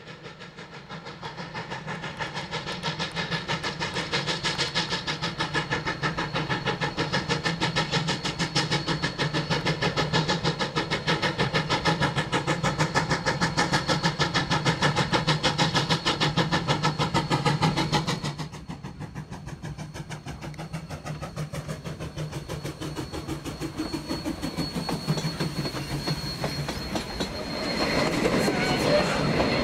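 Sierra Railway No. 3, a 4-6-0 ten-wheeler steam locomotive, working its train with a rapid, even exhaust beat that grows louder as it approaches. About eighteen seconds in the sound drops abruptly, then builds again as the locomotive passes close, with a thin steady wheel squeal joining near the end.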